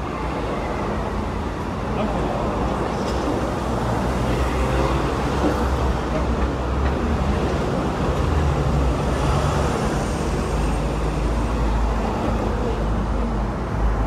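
Hong Kong double-decker electric tram running along the street: a steady low rumble of the tram mixed with road traffic noise, with a faint high whine for a couple of seconds around the middle.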